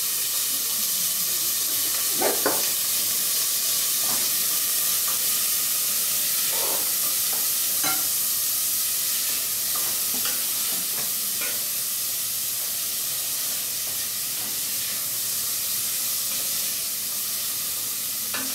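Diced bacon frying in olive oil in a stainless steel pot, a steady sizzle, with a wooden spoon now and then scraping and knocking against the pot as it is stirred.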